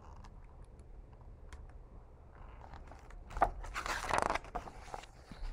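A page of a picture book being turned by hand, a short papery rustle with a few crinkles about three and a half seconds in, lasting about a second. Before it there is only quiet room tone.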